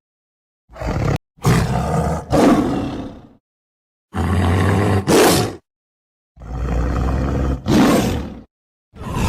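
Tiger roaring, about five separate roars of one to two seconds each, with dead silence between them.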